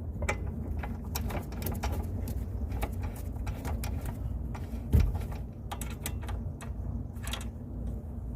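Scattered small clicks and clinks of hand work with tools and bolts on a car's rear brake caliper bracket, with one louder knock about five seconds in, over a steady low hum.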